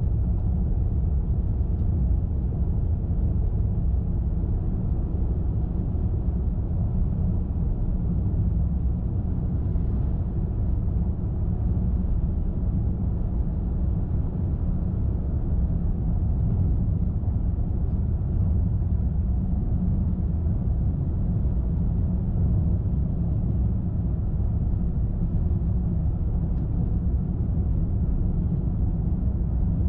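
Car driving at a steady speed: a steady low rumble of tyres on the road and engine, with no sudden sounds.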